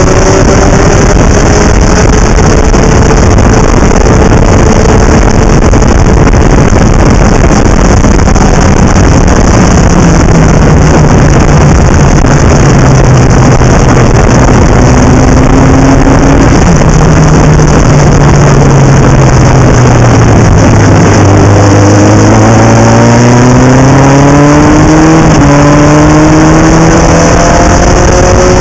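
Legend race car's Yamaha motorcycle engine running hard, heard loud from a bonnet-mounted onboard camera with heavy wind rush over the microphone. The engine note sinks as the car slows about two-thirds of the way through, then climbs again in short rising steps as it accelerates back up through the gears.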